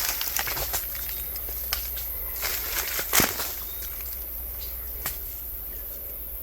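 Footsteps pushing through undergrowth: irregular crunches and rustles of leaves and brush, with a sharp snap about three seconds in.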